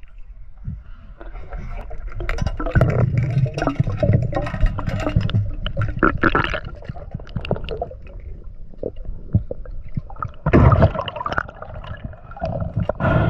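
Water splashing and gurgling in irregular surges, loudest a few seconds in and again briefly near the end.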